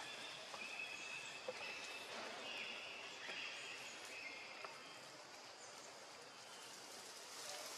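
Faint outdoor forest ambience: a steady hiss with a few short, high chirping calls between about one and four seconds in.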